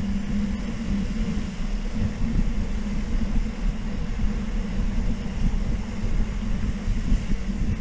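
Steady low rumble of wind buffeting the microphone while riding a mountain bike, with the tyres rolling underneath; no distinct events.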